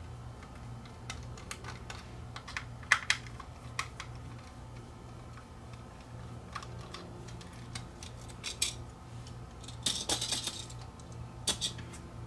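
Scattered small clicks and taps of a plastic smoke-alarm housing being handled and pried apart, with a sharp cluster of clicks about three seconds in and a brief scraping rustle about ten seconds in. A steady low hum runs underneath.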